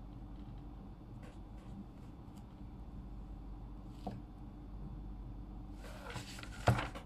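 Faint scratches and taps of someone working on paper at a desk, then paper rustling about six seconds in as a page is handled, ending in a sharp knock on the desk, the loudest sound.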